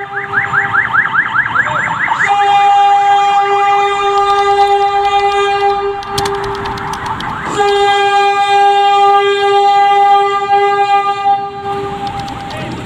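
Diesel locomotive's air horn sounding as the train approaches the crossing: a long steady blast, a break of about a second and a half about six seconds in, then a second long blast that stops about a second before the end. A fast repeating rising chirp, about four a second, sounds over the start of the first blast.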